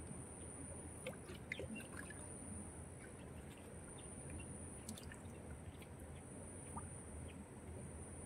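Faint drips, small splashes and sloshing of hands groping through shallow muddy water, with scattered soft clicks, over a steady high-pitched whine.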